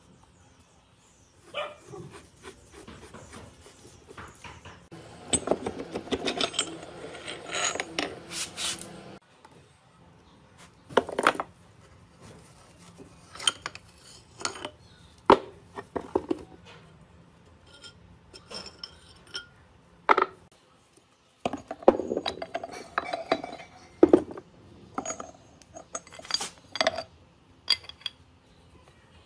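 Metal clinking, scraping and knocking as the rusted spindle, cone pulley and gears of an antique lathe headstock are worked apart by hand. A stretch of rubbing, grinding metal comes about five seconds in, followed by scattered sharp clanks.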